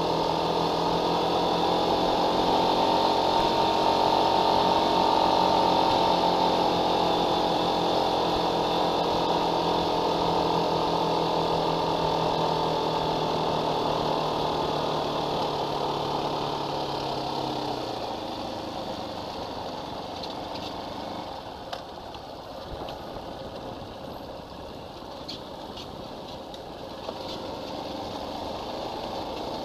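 Fantic dirt bike's engine running at a steady pace while the bike is ridden. About two-thirds of the way through, the engine note drops away to a quieter, rougher rumble, with a few light clicks near the end.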